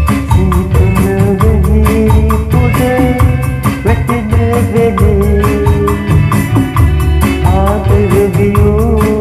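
Background music with a fast, steady percussive beat over heavy bass and a wavering melody line.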